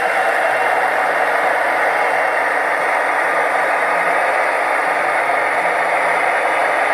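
Digital sound decoder in a Piko HO-scale DR V200 model diesel locomotive playing a steady diesel engine running sound. The sound is thin, with little bass.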